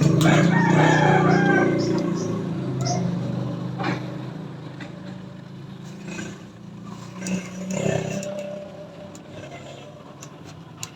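A rooster crowing loudly at the start, then fading, over a steady low hum of a vehicle engine.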